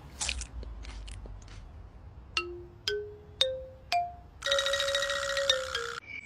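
Four short xylophone-like mallet notes, each higher than the last, about half a second apart, followed by a bright shimmering burst with a held tone for about a second and a half. Light scattered rustles come before the notes.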